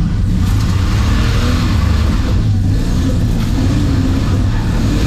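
Turbocharged Holden Ecotec 3.8-litre V6 of a VS Commodore running loud under throttle on a drift run.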